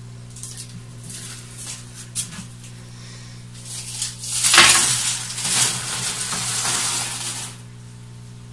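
Small aquarium gravel rattling in a plastic basket and spilling out onto the substrate of a dry glass tank: a few scattered clicks of pebbles at first, then a loud clattering pour lasting about three seconds from around the middle. A steady low hum runs underneath.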